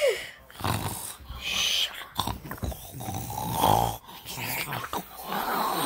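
Mock snoring: a person voicing sleeping plush toys, with irregular snoring and snorting breaths about once a second.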